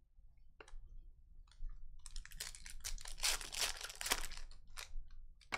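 A foil trading-card pack wrapper being torn open by hand: a few light ticks, then a dense crackling and crinkling from about two seconds in that dies away near the end.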